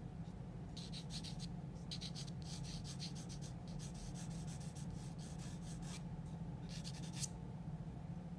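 Graphite pencil scratching across drawing paper in quick sketching strokes, in four runs with short pauses between them.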